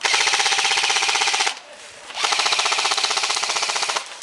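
Airsoft electric gun firing on full auto: two long bursts of rapid, even shots, the first about a second and a half long, then after a short pause a second burst of nearly two seconds.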